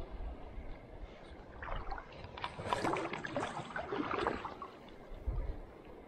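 Water splashing and sloshing in an irregular flurry for a few seconds in the middle.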